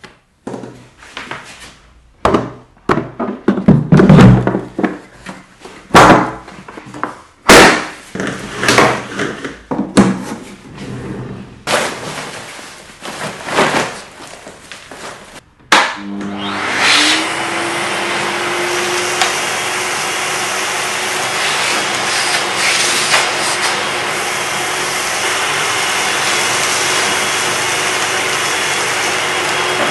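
A series of irregular knocks and thumps from handling the vacuum as it is closed up, then about 16 s in the Festool CT 17E vacuum cleaner's motor starts, its whine rising for a second or two and settling into a steady loud run with rushing airflow.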